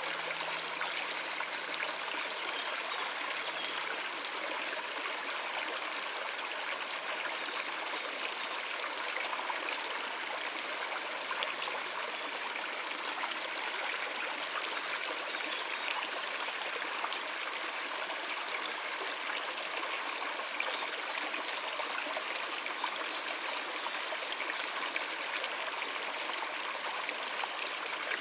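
Stream water running over rocks: a steady rushing and trickling flow.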